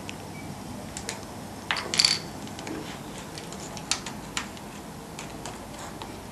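A few sharp clicks and knocks from small hard objects being handled, with the loudest, a brief ringing metallic clink, about two seconds in.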